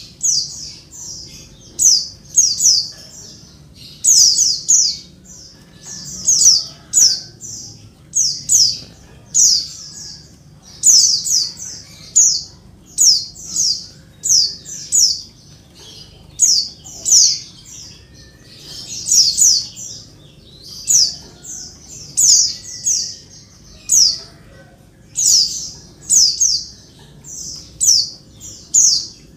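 Female pleci (white-eye) calling noisily over and over. Each call is a short cluster of a few quick, high, falling notes, about one cluster every second or so. Bird keepers use this call to set male white-eyes calling and singing.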